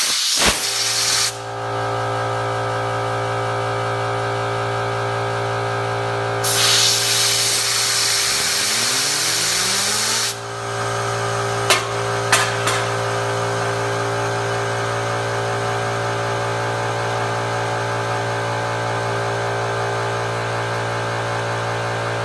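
Air compressor motor running steadily with a loud hum throughout, while a compressed-air blow gun hisses in two blasts, briefly at the start and again for about four seconds from the middle, driving a fidget spinner; a whine rises in pitch during the second blast, and two sharp clicks follow soon after.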